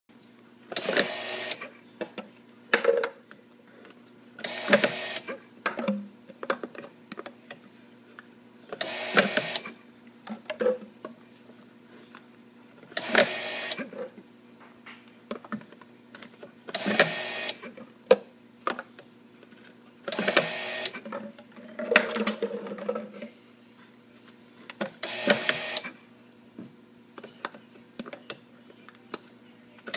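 Dispensa-Matic DM-III label dispenser for flat plastic bottles running in short bursts of about a second, roughly every four seconds, as each bottle is fed through and labelled. Between bursts there are small clicks and knocks from the plastic bottles being handled, over a faint steady hum.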